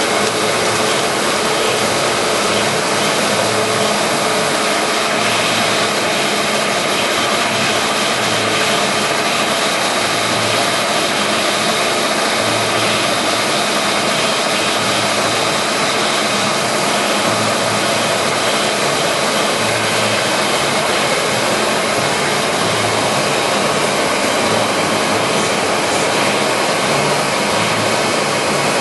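1973 Monarch Model 62 heavy-duty engine lathe running under power on a test cut, its 20 HP main drive and geared headstock making a loud, steady mechanical hum with a slow, regular pulse in the low end.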